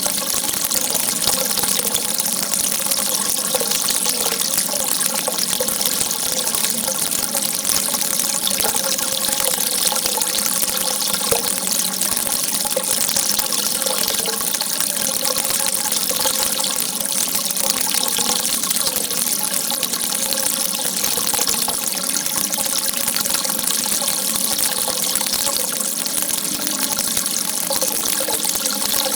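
Steady rush of running water, a continuous even hiss with a faint wavering gurgle underneath.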